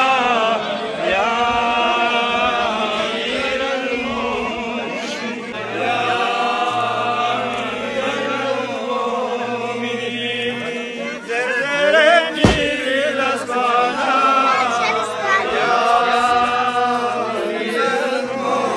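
A crowd of people chanting together in chorus, in sustained phrases that rise and fall every few seconds. A single sharp knock comes about twelve seconds in.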